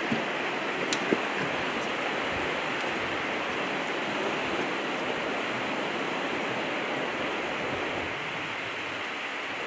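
Steady rushing of river water flowing over rocks, with a couple of light clicks about a second in.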